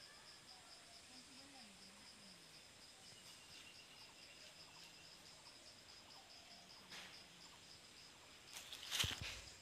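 Faint insect chirping outdoors: a steady, high-pitched train of rapid, even pulses. A brief rustling bump comes near the end.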